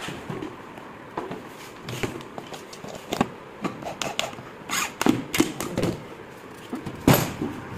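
Scattered knocks, taps and clicks of laminated wooden boards being handled and fitted together on a work table, with a sharp knock about seven seconds in.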